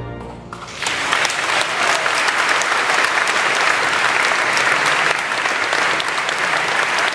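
The last chord of the choir, orchestra and organ dies away in the church's reverberation, and about a second in the audience breaks into steady applause.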